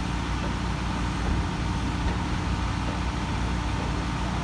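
Volvo EC55D mini excavator's diesel engine running steadily with an even, low hum.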